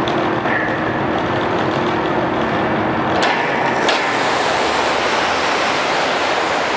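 Pumping equipment running steadily with a low hum. About three seconds in, two completion sleeves in the test pipe open and two high-pressure water jets spray out with a loud hiss, the sign that the dart has landed and the sleeves have activated.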